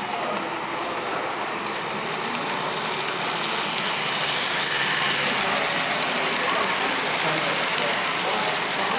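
HO scale model train passing close by: the locomotive's running gear and the metal wheels of the passenger cars clatter over the track in a dense rattle with fine clicks, louder from about halfway through as the train goes by.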